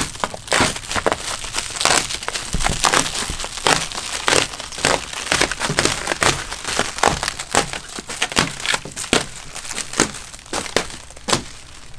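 Plastic stretch wrap being slit with a box cutter and pulled off a large cardboard carton, crinkling and crackling irregularly throughout.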